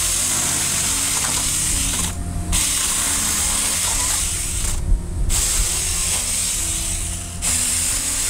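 Saker 20 V battery mini chainsaw with a 4-inch bar cutting through a low stump: a steady high-pitched buzzing rasp of chain on wood that breaks off briefly three times, about two, five and seven seconds in.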